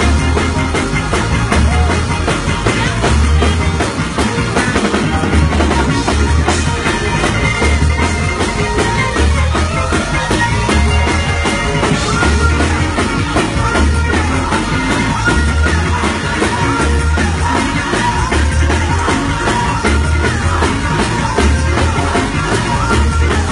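Live gospel praise music from a church band: drum kit and electric organ, with a deep bass note pulsing a little more than once a second.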